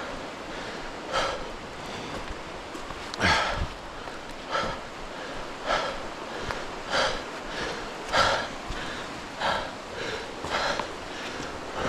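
Hiker's footsteps squelching on a wet, muddy rainforest trail, one step about every second and a quarter, two landing heavier with a dull thud, over a steady background hiss.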